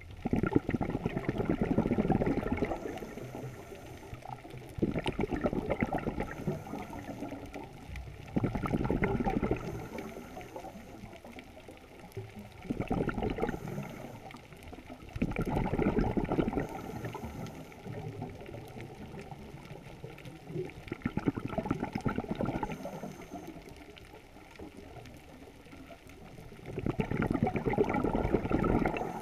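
Scuba diver breathing through a regulator underwater: bursts of exhaled bubbles rumbling and gurgling about seven times, every few seconds. A faint hiss from the regulator comes on each inhale between them.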